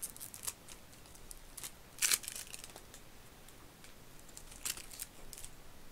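A deck of board-game cards being handled and leafed through: scattered light flicks and scrapes of card on card, with one louder scrape about two seconds in.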